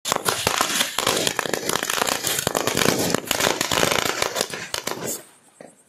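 Many small firecrackers going off in rapid, dense succession, a continuous crackle of sharp pops that dies away about five seconds in.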